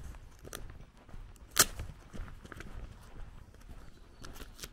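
Footsteps crunching along a dirt and gravel lane, with one sharper, louder crack about a second and a half in.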